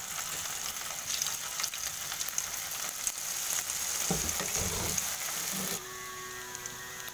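Batter-coated cauliflower florets deep-frying in hot oil: steady sizzling and crackling as a fresh batch goes into the pan, with a few low thuds about four to five seconds in. The sizzling eases off near the end.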